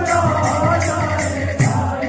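Odia kirtan music: singing over drum and jingling metal percussion keeping a steady beat.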